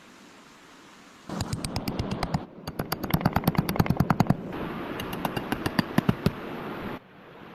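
A rapid, even series of sharp taps, about eight a second, starting about a second in and cutting off suddenly near the end.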